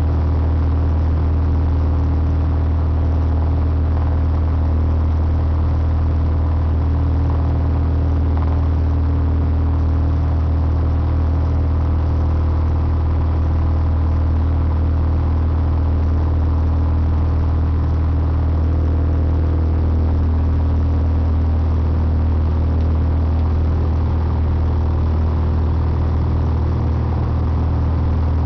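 Piper PA-28 Dakota's six-cylinder Lycoming O-540 engine and propeller droning steadily at climb power, heard inside the cabin during the climb-out after takeoff.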